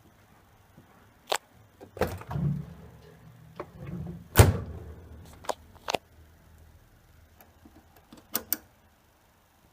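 A series of clicks and knocks, the loudest about four and a half seconds in. A low hum sounds under them from about two seconds in until about seven seconds.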